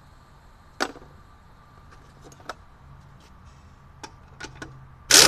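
Scattered metal clicks and knocks as a steel wheel and its lug hardware are handled on the hub, with one sharp clank about a second in. Right at the end comes a short, loud burst of noise.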